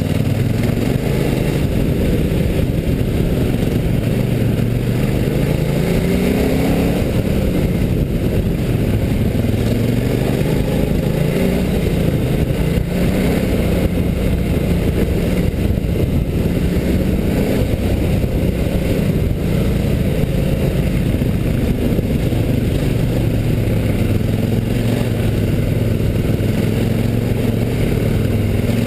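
Motorcycle engine running while riding on a dirt trail, its pitch rising and falling again and again as the throttle opens and closes, over a steady rushing noise.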